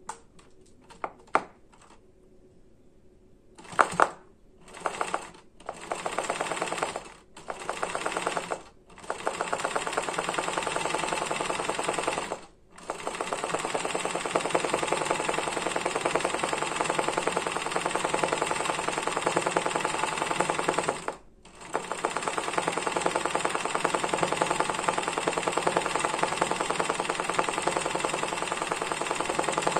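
Janome 813 sewing machine stitching a zigzag satin stitch, its needle running in a fast, even rhythm. A few clicks come first, then several short runs of stitching from about four seconds in, then long steady runs broken twice by brief pauses.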